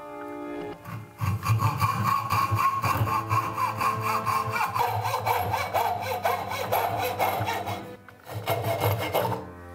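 Small hand hacksaw cutting through a wooden rail in quick back-and-forth strokes. The strokes start about a second in, stop briefly near the end, then go on for a few more.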